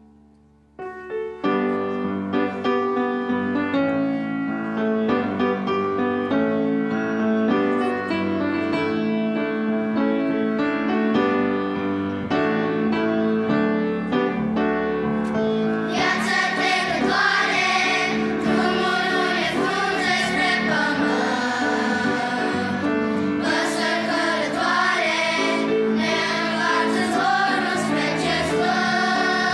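A grand piano starts an introduction about a second in. About halfway through, a children's choir comes in singing a Romanian hymn, with the piano accompanying.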